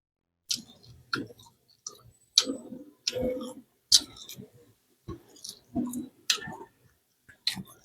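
A person chewing food close to the microphone: irregular wet smacks and sharp crunchy clicks, one or two a second, starting about half a second in.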